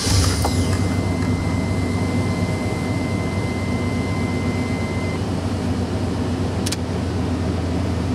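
GM 2500 pickup's engine just after starting, idling steadily on its cold-start high idle at about 1000 rpm. A thin steady whistle fades out about five seconds in, and a single click comes near the end.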